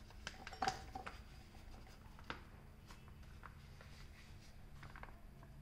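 A few light knocks and clicks, the sharpest about half a second in, from a filled buttercream piping bag and the steel bowl and tumbler beside it being handled, over a faint steady hum.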